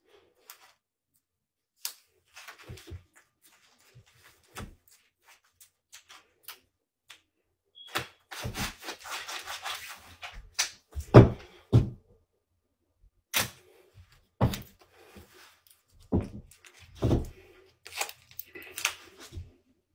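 Scattered knocks and thumps with a stretch of rustling from about eight to ten seconds in: handling noise from someone moving about and handling things close to the phone, the loudest thump about eleven seconds in.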